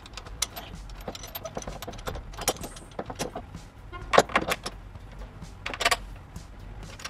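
Metal bolts and mounting hardware clinking and rattling during a side-step install, with two short bursts from a cordless drill about four and six seconds in.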